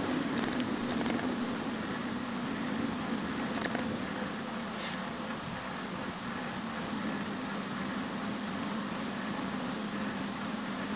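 Steady wind and rolling noise of a bicycle riding along a paved trail, with a few faint clicks and rattles.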